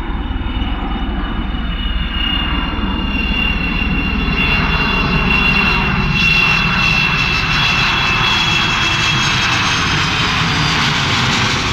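The four Rolls-Royce Olympus turbojets of an Avro Vulcan, heard as the delta-wing bomber flies in and passes overhead. The jet roar swells, carrying a high whistle that slowly falls in pitch. Near the end the whistle fades into a broad roar.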